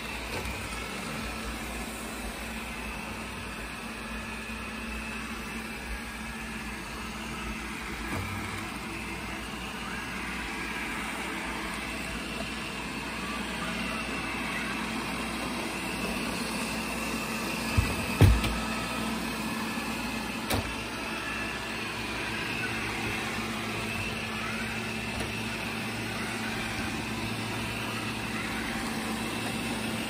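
Wyze lidar robot vacuum running across a hardwood floor: a steady motor and fan hum with a high whine. Two sharp knocks come a little past halfway, then a lighter click.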